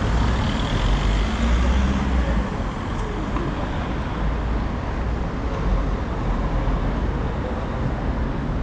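Road traffic on a city street: cars and motor scooters running past as a steady noise, with a low rumble that is heaviest in the first two seconds or so.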